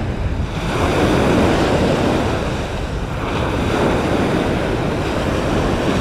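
Waves breaking on the shore with wind buffeting the microphone: a steady rush of surf and wind.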